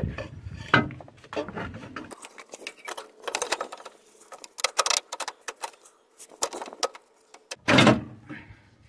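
Metallic clicks and rattles of a steel-and-rubber engine mount being handled and fitted against its bracket by gloved hands, some in quick runs. There is one loud knock near the end.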